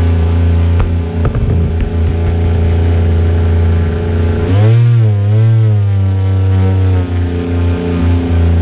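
Radio-controlled model boat's motor running with a steady, multi-toned hum; its pitch wavers down and up about halfway through, and a few short clicks come just over a second in.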